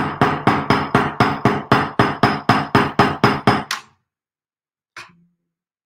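Texturing hammer (Now That's A Hammer) striking a small metal jump ring on a steel bench anvil in quick, even blows, about four a second. Each blow has a light metallic ring. The blows flatten, texture and work-harden the ring. They stop about four seconds in, and one faint tap follows.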